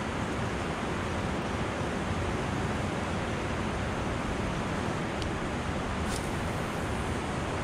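Steady rush of turbulent river water churning below a lock and dam, an even noise with no breaks.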